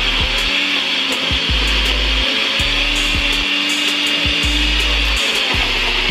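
NutriBullet personal blender running steadily, puréeing chopped onion, scallions and hot pepper into a smooth paste.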